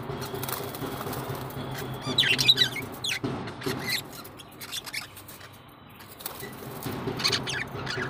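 A flock of budgerigars chirping and chattering, with short clusters of high chirps loudest about two seconds in and again near the end, over a steady low hum.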